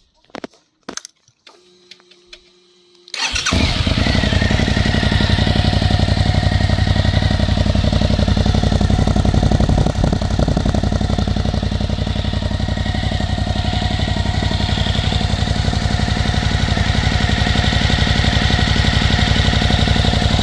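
Suzuki V-Strom 1050DE's V-twin engine, fitted with a Fuel aftermarket slip-on exhaust with its dB-killer baffle in place, started up. A few clicks and a short hum come first, then the engine catches about three seconds in and settles into a loud, steady idle.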